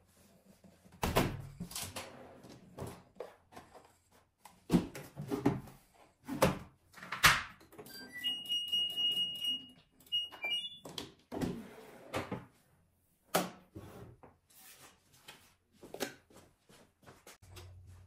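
Knocks and thumps of laundry being loaded into an LG front-loading washing machine and its door being shut, then the washer's electronic beeps about halfway through: a short run of rising tones and a held beep as it switches on, followed by a few quick beeps as the program dial is turned. More knocks and clicks follow.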